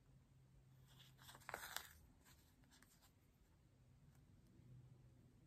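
Near silence, with faint rustling scrapes of an embroidery needle and thread being drawn through fabric about a second to two seconds in.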